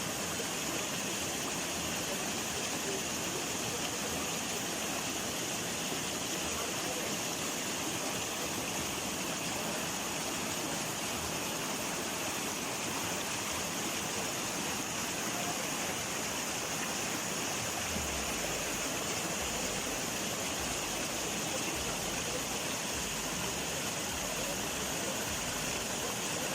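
Flowing water: a steady, continuous rushing with no breaks. Some faint low rumbling comes and goes in the last third.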